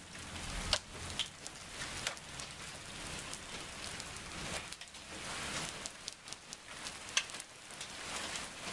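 Steady thunderstorm rain falling on pavement and lawn, an even hiss dotted with sharp taps of drops striking close by, two of them standing out, one about a second in and one near the end.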